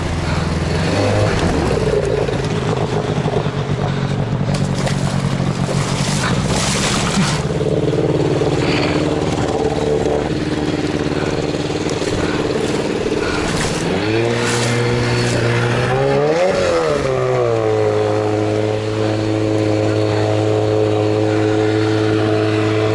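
Engine running steadily under load, revving up and dropping back about two-thirds of the way through, then holding a steady pitch.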